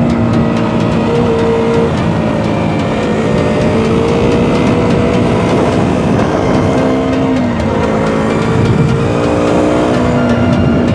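KTM Duke 125's single-cylinder four-stroke engine running steadily while riding, its pitch shifting in steps a few times.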